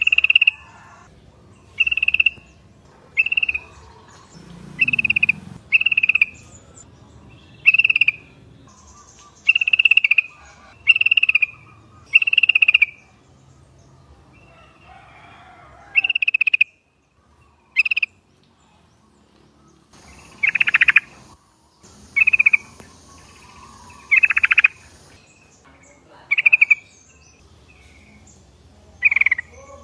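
Yellow-vented bulbul (trucukan) calling: short, loud notes repeated every second or two, with a brief pause partway through.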